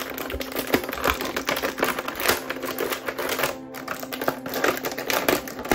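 Plastic toy pieces and packaging being handled: rapid, irregular clicks and taps, over background music.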